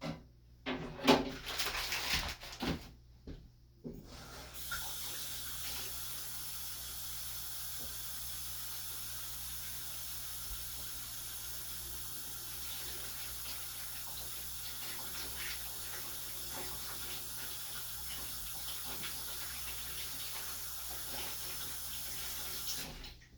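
Kitchen tap running steadily into a sink for about eighteen seconds, then shut off. A few sharp knocks and rustles of handling come before it starts.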